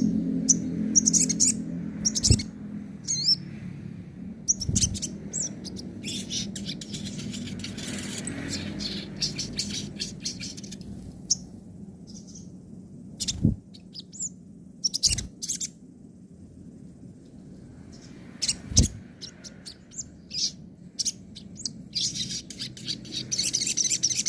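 Sogon bird singing: bursts of sharp, high chirps and rapid chattering phrases, broken by short pauses, with a dense run of chirps near the end.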